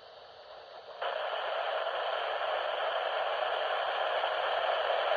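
Weather radio receiver hissing with static: faint at first, then a loud, steady hiss cuts in suddenly about a second in. It is heard as the TBW office's required weekly test fails on the air.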